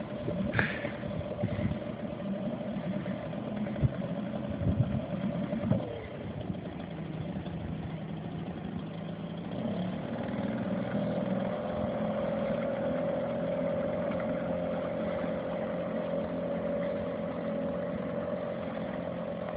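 Mercury 3.3 hp two-stroke outboard motor running steadily with a constant hum. Its pitch drops around six seconds in, then picks up near ten seconds and holds steady. A few knocks come in the first six seconds.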